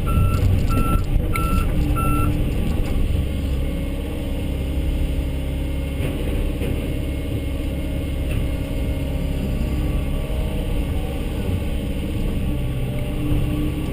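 Backup alarm beeping about every half second, stopping about two seconds in, over the steady running of a Volvo excavator's diesel engine.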